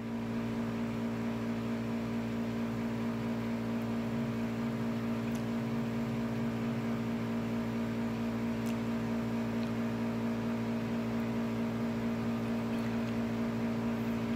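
A steady, unchanging drone made of several fixed tones, like an appliance or electrical hum.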